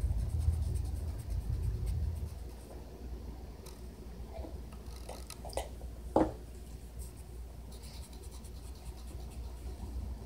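Felt-tip marker scratching across paper as strokes are drawn, over a low rumble that fades out about two seconds in. A brief squeak stands out about six seconds in.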